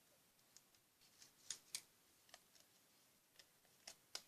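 Faint, scattered sharp clicks and light taps, about eight over four seconds, with the clearest pair about a second and a half in and a last one near the end; otherwise near silence.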